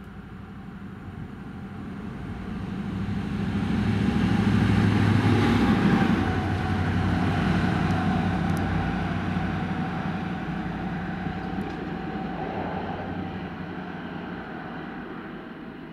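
DB Class 294 diesel-hydraulic switcher locomotive passing, its engine drone swelling as it approaches, loudest about five to six seconds in, then slowly fading as it moves away.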